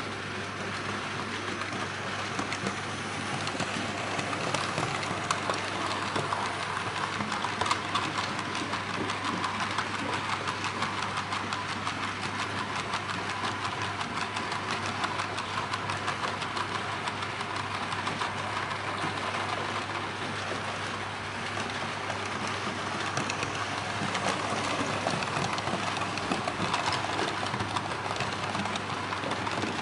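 Märklin H0 model freight train running on metal M-track: a dense, steady clicking rattle of small wheels on the rails, with a steady low hum underneath.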